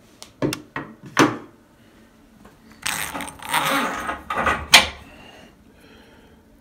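A few sharp knocks and clicks, then about two seconds of rustling and clattering that ends in one sharp click: hard objects being handled and set down.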